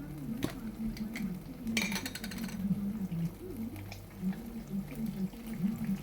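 Kitchen clatter: dishes and utensils clinking and knocking, with a short rattling scrape about two seconds in.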